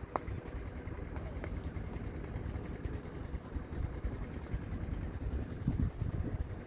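Strong wind buffeting the camera's microphone, an uneven low rumble throughout, with a sharp click just after the start.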